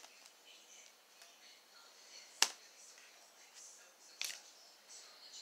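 Slime being handled by hand: soft sticky crackles, with a sharp pop about halfway through and a second, weaker pop about a second and a half later.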